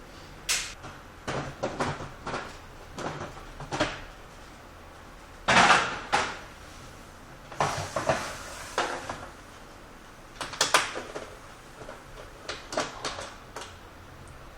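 Plastic casing of an HP Officejet 6500 printer being handled and pried apart: a string of irregular clicks, knocks and short scrapes from panels, clips and tools, the loudest about six seconds in.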